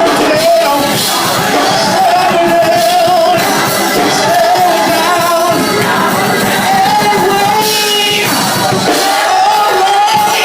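Live gospel choir singing with musical accompaniment, a voice holding long wavering notes over the music, with some shouts.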